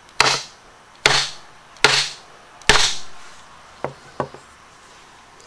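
A wooden mallet striking a bench chisel held edge-on along the grain of a board: four heavy whacks about a second apart, then two faint clicks. Driven this way, the chisel wedges the wood fibres apart and starts a crack along the grain.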